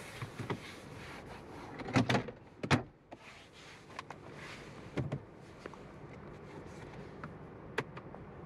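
Hands knocking and handling the interior trim of a 2021 Honda Civic Sport Hatchback cabin: a few sharp taps and thumps on plastic, the loudest about two to three seconds in, and single ones near five and eight seconds, over a steady low hum.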